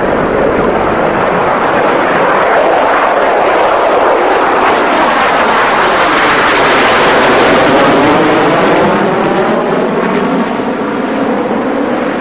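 Jet noise from a B-2 Spirit stealth bomber's four turbofan engines during a low flypast. It swells as the bomber comes directly overhead and eases a little after about nine seconds as it banks away, with a sweeping, phasing rush as it passes.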